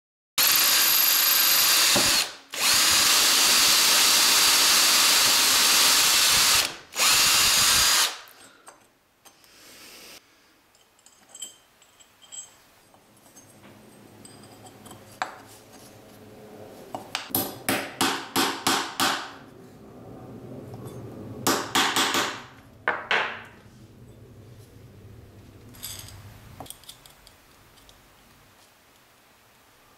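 Electric drill running at full speed for about eight seconds, cutting out briefly twice before it stops. Later comes a quick run of light clicks.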